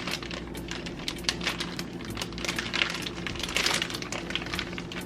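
Crinkly handling noises with many irregular light clicks as deli cheese slices are handled and laid on a sandwich.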